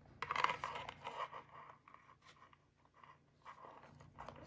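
Handling noise from a Louis Vuitton Félicie Pochette in coated monogram canvas: rustling and scraping as it is turned in the hands, loudest in the first second and a half, then quieter with a few light clicks.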